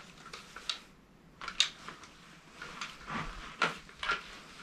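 Scattered clicks, knocks and rustles of gear being handled as a person turns and poses with an airsoft rifle replica and plate carrier, with a sharp click about one and a half seconds in and two more knocks near the end.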